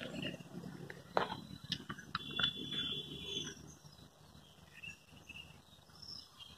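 Faint outdoor ambience: a low rumble over the first few seconds, with scattered short high chirps and a held high call a couple of seconds in.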